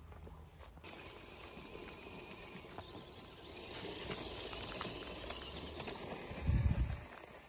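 RC 6x6 crawler truck's tyres rustling and crackling over dry leaf litter, swelling as the truck passes close by. A brief low rumble near the end.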